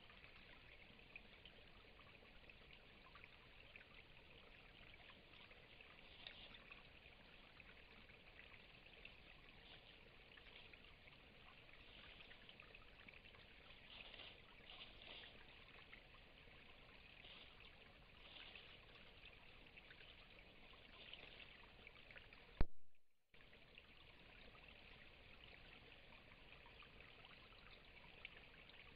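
Faint steady hiss, with a single sharp click about two-thirds of the way through, followed by a brief total cutout of the sound.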